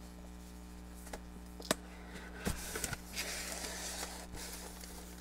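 Cardboard mailer box being opened by hand: a few sharp clicks and knocks as the lid is worked free, then a second or so of cardboard scraping and rustling as the lid is lifted, over a faint steady hum.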